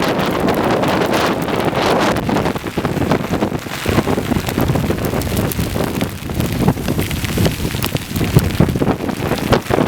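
Squally wind gusting over the microphone while hail pelts down, a dense patter of many small impacts.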